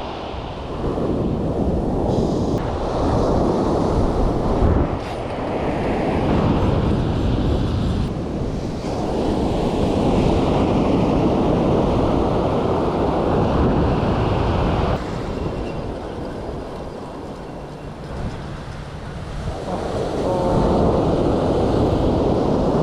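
Wind buffeting the microphone over surf breaking on the beach, a rough rushing noise that swells and eases every few seconds, dropping lower for a few seconds past the middle before rising again.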